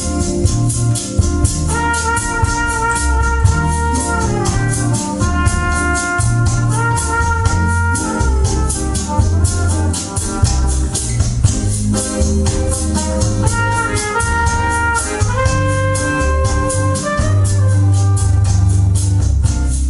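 Recorded music played back through Wharfedale Diamond 9.5 floorstanding speakers and a Diamond SW-150 subwoofer as a sound test: a track with held organ chords, a fast even beat and heavy bass.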